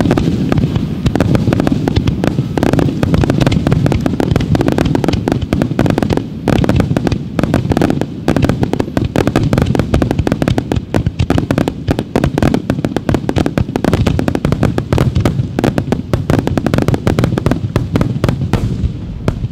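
Wide starmine fireworks display: shells and ground mines fired in rapid succession, a dense run of bangs many times a second that falls away suddenly near the end.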